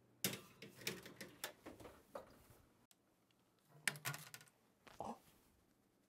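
Kitchen bakeware being handled: a run of light clicks and knocks over the first couple of seconds, then another short cluster about four seconds in and a single knock about a second later.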